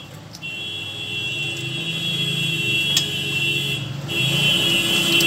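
A high electronic buzzer tone sounds in long stretches. It breaks off briefly near the start and again about four seconds in, and a single sharp click comes about three seconds in.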